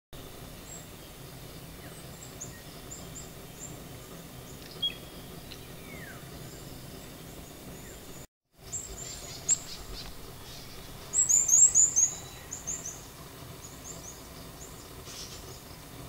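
Small parrots calling, including a Guaiabero: scattered short, shrill, high-pitched notes, with a louder quick run of about seven notes about two-thirds of the way in. The sound drops out for a moment just past halfway.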